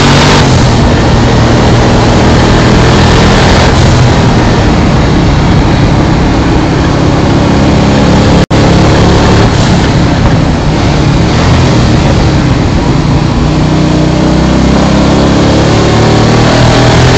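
Twin-turbo 347 cubic inch Ford Windsor V8 of a Mazda RX7 race car running hard on track, fitted with mufflers and on low boost, heard from inside the car. The engine note is loud and continuous, rising and falling in pitch through the lap. The sound drops out for an instant about halfway through.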